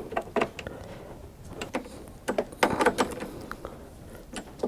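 Irregular clicks and light metallic knocks of a hand tool tightening the bolts that hold a push mower's handle.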